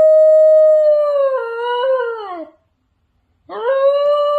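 New Guinea singing dog howling: a long, steady, clear note that begins to waver, steps and slides downward, and fades out about two and a half seconds in. After a second's pause, a second howl swoops up and holds.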